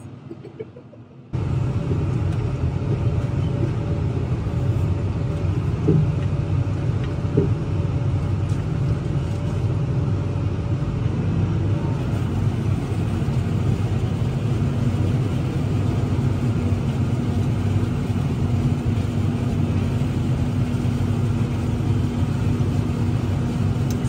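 Steady low machinery rumble and hum of a tractor engine and forage harvester chopping corn silage alongside, heard from inside the tractor cab. It starts abruptly about a second in and then runs evenly.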